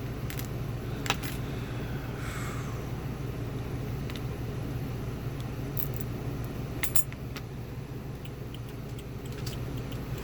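Small metal clicks and clinks from a lock and picking tools being handled and worked while the lock is taken apart, a sharp click about a second in and a couple more near seven seconds, over a steady low hum.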